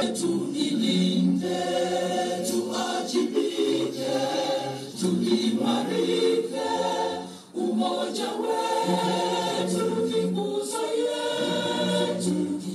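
A choir singing, several voices together, with a brief pause about seven and a half seconds in.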